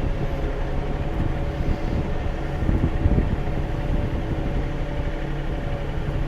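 Compact diesel tractor engine running steadily while it works a grapple to lift a sawlog, with a thin steady whine over it. There is a louder, busier stretch about three seconds in.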